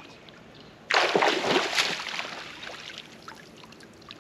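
A sudden splash in the lake about a second in, followed by sloshing water that dies away over about two seconds.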